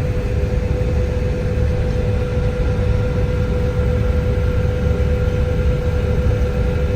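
John Deere 9670 combine running steadily while harvesting grain sorghum: a dense low rumble with a steady hum, and a faint higher whine joining about two seconds in.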